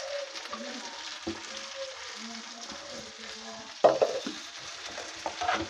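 Curry simmering and sizzling in an aluminium pressure-cooker pot, a steady hiss, while a ladle stirs it, with one louder scrape about four seconds in.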